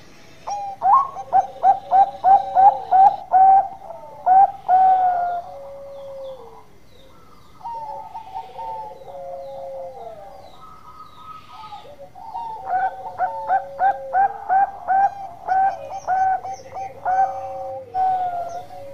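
A Bangkok-type zebra dove (perkutut) singing its long song. It gives two long runs of quick, rapid coos, one starting about a second in and the other in the second half, with softer, sparser coos between them.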